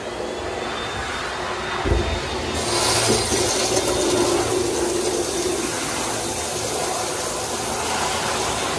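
Flushometer toilet, a 1980s Kohler Wellcomme bowl, flushing: water rushes in, with a low thud about two seconds in, then a steady loud hiss of water flowing through the valve as the bowl refills.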